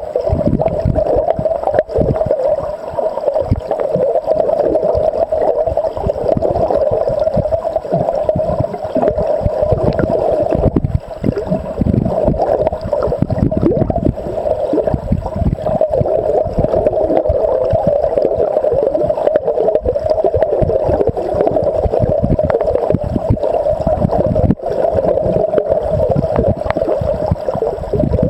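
River current rushing and gurgling over a gravel bed, heard from underwater: a steady, muffled rush with an uneven low rumble beneath it.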